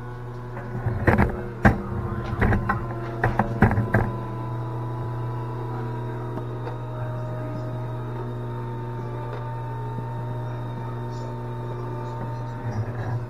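Philips electric pasta maker's motor running steadily with a constant hum as it extrudes fettuccine dough through the die. A few knocks and clicks come in the first few seconds.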